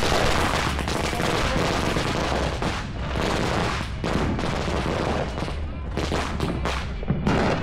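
Ground fountain firework spraying sparks, with a dense, rapid crackling and popping over a steady hiss and a few sharper cracks near the end.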